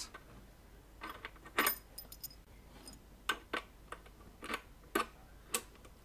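Irregular light clicks and taps from hands handling a small metal power-supply box with a multi-pin power cord plugged into it.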